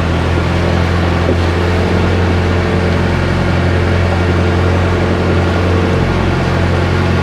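Engine of a motorized Filipino canoe running steadily under way: a loud, even drone with a strong low hum.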